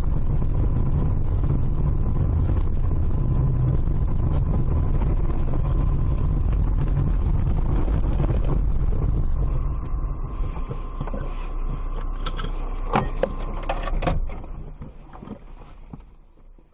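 Car driving with a steady low rumble of engine and road noise that eases off about ten seconds in. A few sharp knocks follow before the sound fades out.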